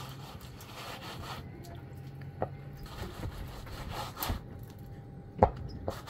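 Hand plastering float rasping and scraping as it smooths plaster across a rough wall in repeated strokes, with a few sharp knocks, the loudest near the end.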